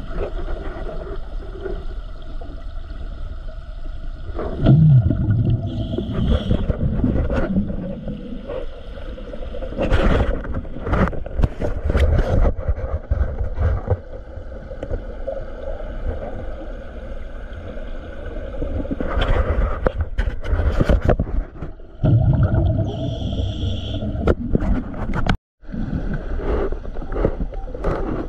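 Underwater sound of a diver breathing through a regulator: loud bursts of bubbling exhalation every several seconds over a steady low background.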